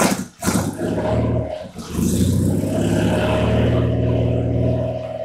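Older motorcycle engine running, with the throttle worked by hand. It dips sharply twice in the first two seconds, then holds steady, somewhat higher revs.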